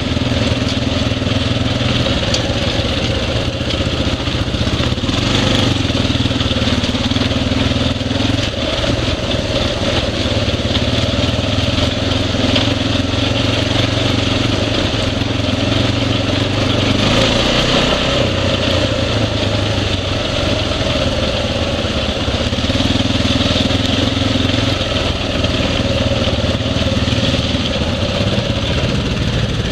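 ATV engine running steadily under way, its pitch stepping up and down a few times as the throttle changes.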